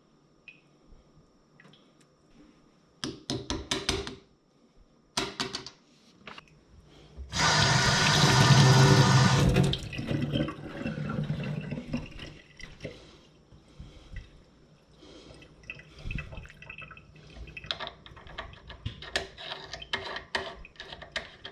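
Kitchen faucet water running into a stainless steel sink while a faucet aerator clogged with debris is rinsed clean. The water is loudest for about two seconds near the middle, then runs on more weakly. Before and after it there are small clicks and knocks as the aerator is handled and screwed back onto the spout.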